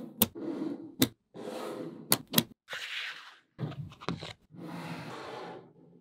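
Small magnetic balls handled on a table: rattling and scraping as slabs of balls are slid and pressed together, with several sharp clicks as balls snap into place. The sound drops out abruptly between bursts.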